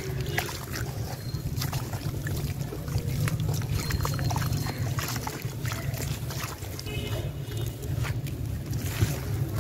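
Hands sloshing and splashing in muddy water in a plastic tub around soaked sand-cement chunks, with irregular small wet splashes and drips. A steady low hum runs underneath.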